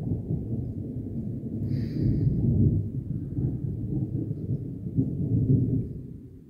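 Thunder rumbling low and rolling, fading away near the end.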